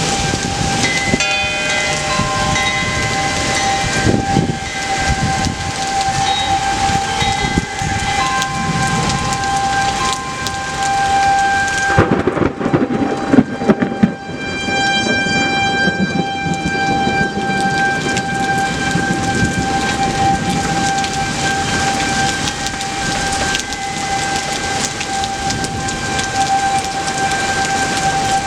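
Thunderstorm: steady rain with rumbling thunder, and a loud thunder clap and rumble about twelve seconds in. A steady high-pitched tone sounds throughout.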